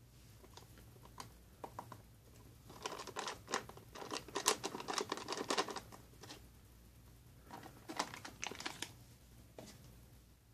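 Foil-laminate MRE entrée pouch crinkling and rustling as it is squeezed and shaken to empty beef brisket in gravy onto a metal tray. The rustling comes in two spells: a longer, louder one about three seconds in and a shorter one near eight seconds.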